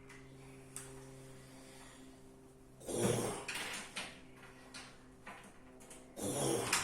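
A person snoring heavily in their sleep: two loud snores about three and a half seconds apart, one with each breath, over a steady low hum.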